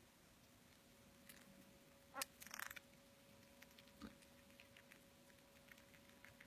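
Near silence with a faint steady hum. About two seconds in, a pet Siberian chipmunk gives one short rising squeak, followed by a brief rustle and then scattered soft ticks and scratches.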